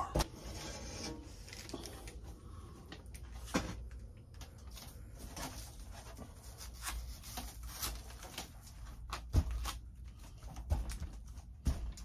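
Glass pane being pressed and shifted by gloved hands in a cut-out opening of a garage door panel: irregular rubbing, scraping and small knocks of glass against the frame.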